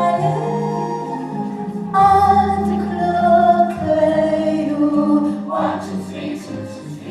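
Music with choir-like singing in long held notes over a bass line, swelling louder about two seconds in.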